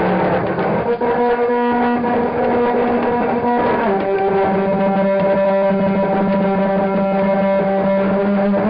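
Live noise music: a loud, sustained droning tone with overtones. It emerges from a rough noisy wash about a second in and drops to a slightly lower pitch a little under halfway through.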